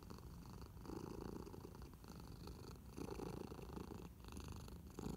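Domestic cat purring: a soft, steady rumble that swells and eases in waves about every two seconds with her breathing.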